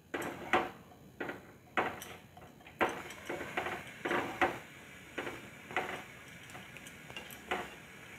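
Spatula scraping and tapping against a pan while stirring a thick, creamy curry. The strokes come as short, irregular clicks and scrapes, about two a second.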